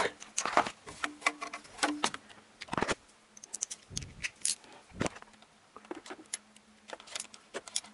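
Irregular metallic clicks, taps and rattles of a long socket extension being fitted onto and turned on the screws of worm-drive hose clamps, checking that they are tight, with a couple of louder knocks.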